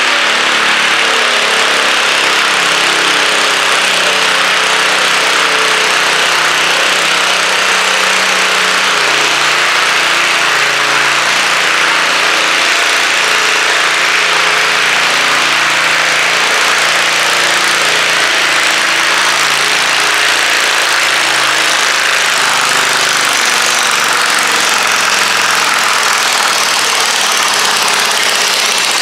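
Garden tractor engine running hard under load as it drags a weight-transfer sled down a dirt pulling track: a loud, steady drone whose pitch wavers slightly as the engine lugs.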